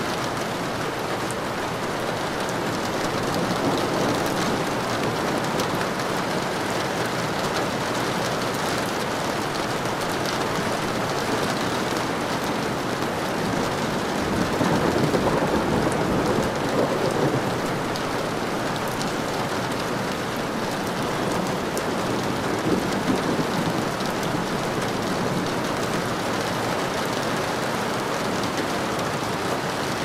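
Steady rain falling, with a low roll of thunder that swells and fades about halfway through.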